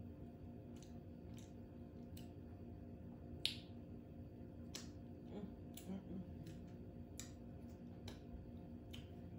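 Eating by hand: scattered wet mouth and lip clicks while chewing seafood, with one sharp click about three and a half seconds in and a brief low vocal murmur near the middle, over a steady low hum.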